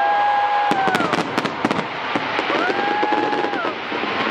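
Fireworks display: a steady crackling wash, with a quick cluster of sharp bangs about a second in. A horn-like tone rises, holds for about a second and a half and falls away, twice.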